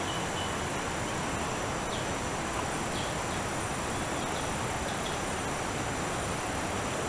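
Steady outdoor background noise: an even hiss with faint high insect sounds and a few soft ticks.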